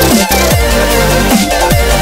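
Electronic dance music with a heavy beat and repeated bass notes that glide down in pitch.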